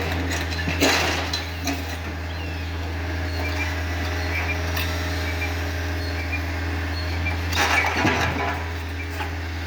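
Takeuchi TB153 compact excavator's diesel engine running steadily while its bucket works slabs of sidewalk concrete, with scraping and clunking of steel on concrete about a second in and again near the end as it tries to break the pieces apart.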